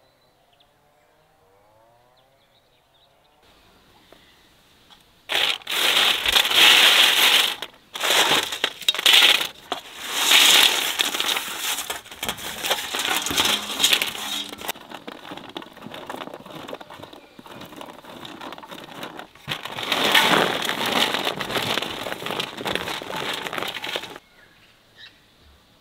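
Crisp dried strawberry slices poured and slid off a metal tray onto another metal tray: a dry crackling, rattling rustle that comes in several pours, with a softer stretch in the middle.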